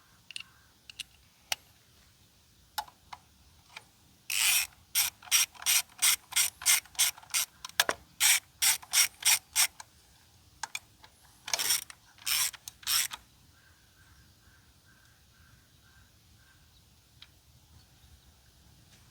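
Socket ratchet wrench being worked on a bolt: a run of about a dozen quick rasping strokes at roughly two a second, a few more strokes a little later, then faint, slow single clicks.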